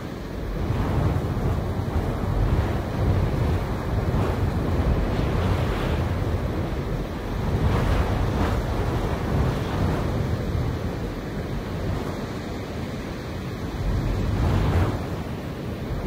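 Wind blowing through grass, with wind in trees behind it, a steady rushing that swells and eases in gusts every few seconds.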